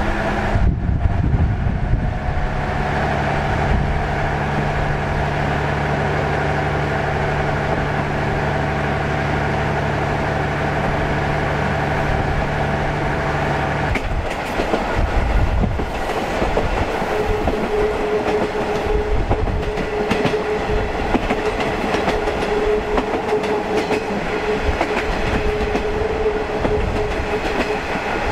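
KiHa 40 series diesel railcar heard from aboard while running, its diesel engine droning under the clatter of wheels on the rails. About halfway through the engine's steady note drops away, and a steady higher tone holds through most of the second half.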